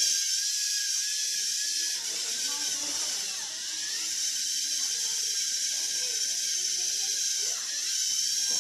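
Steady background hiss, with faint, irregular low sounds underneath.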